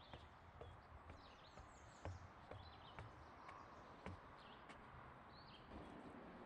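Faint footsteps knocking on wooden stair treads, one step every half second or so, with small birds chirping. A soft steady rush comes in near the end.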